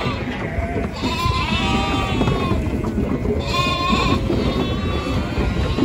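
Lambs bleating: several high calls one after another, the loudest a little past halfway.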